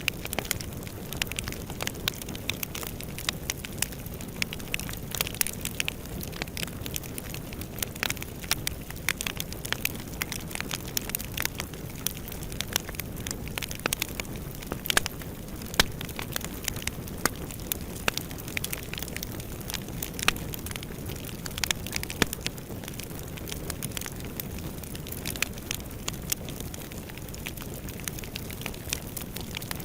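Wood fire burning in a fireplace: a steady low rush of flames with frequent, irregular crackles and sharp pops.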